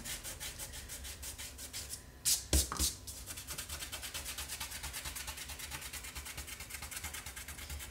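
Fingers rubbing dried masking fluid off watercolour paper in quick, even back-and-forth strokes, about six a second. Two louder knocks come about two and a half seconds in.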